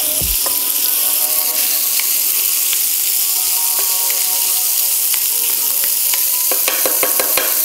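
Ground beef sizzling in hot olive oil in a frying pan, stirred and broken up with a wooden spatula, with a few sharp clicks near the end.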